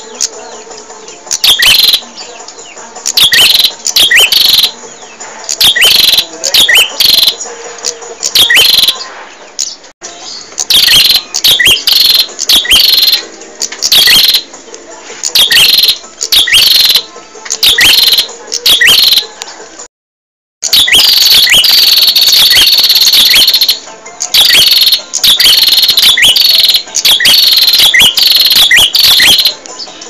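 A prenjak in full song: repeated phrases of sharp, quick chirps, each about a second long with short pauses between them. About two-thirds through, a brief break to silence is followed by a longer unbroken trill lasting a few seconds.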